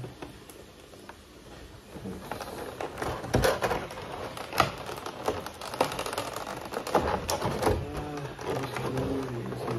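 Clear plastic packaging crinkling and crackling as a blister tray and plastic bag are handled and pulled apart, with irregular sharp crackles starting about two seconds in.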